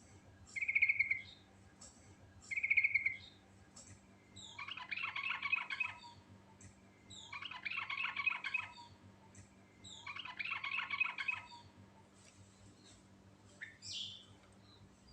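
Trucuk (yellow-vented bulbul) singing: two short bubbly notes, then three chattering phrases of about a second and a half each at even spacing, and a short call near the end.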